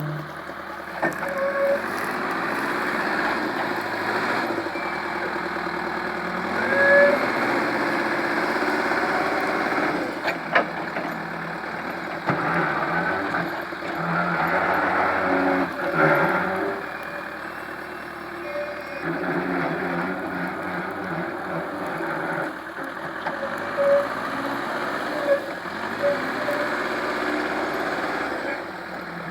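Caterpillar 428C backhoe loader's diesel engine running under working load, its level rising and falling as it digs, with a few sharp knocks.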